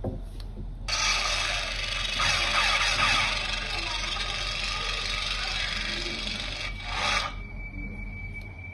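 Toy lightsaber's built-in speaker playing its ignition and hum sound effects. The sound cuts in suddenly about a second in, runs loud and even, and stops abruptly about seven seconds in as the blade shuts off. A faint steady high tone follows.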